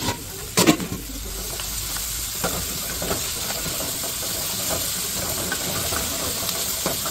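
Webfoot octopus and vegetables with red pepper paste sizzling steadily in a hot wok, with the light scrape and knock of wooden spatulas stirring them. There is a sharper knock about half a second in.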